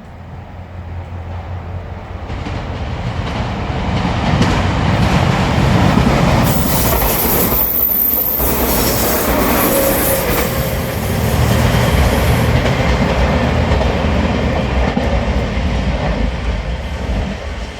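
JR Shikoku 2700 series limited express diesel train passing close by, its engines and wheels on the rails growing louder over the first few seconds, then loud and sustained as the cars go past. A brief high-pitched sound comes about seven seconds in.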